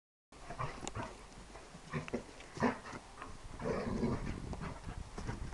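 Two dogs, a lurcher and a German shorthaired pointer puppy, at rough play: a string of short dog noises, the loudest about two and a half seconds in, with a longer, rougher stretch a little before four seconds.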